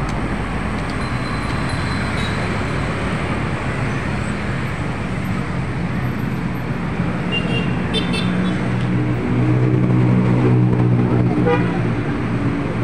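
Road traffic with motorcycles and cars passing and a steady rumble of tyres and engines. A short horn toot sounds about seven to eight seconds in. About nine seconds in, a nearby engine hum gets louder for a couple of seconds.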